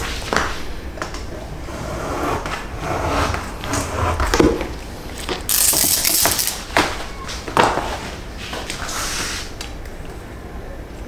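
Metal weights and steel rulers knocking and sliding on a wooden worktable, with a large sheet of stiff paper-like reinforcement material rustling as it is lifted and spread, the rustle loudest about six seconds in.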